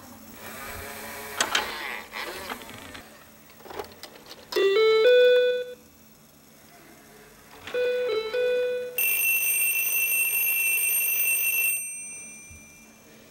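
Electronic sounds from an installation of hacked household devices and toys. First a stretch of clattering and clicks, then two short electronic chimes, each a few quick notes. Last comes a steady, high electronic alarm tone for about three seconds that cuts off suddenly.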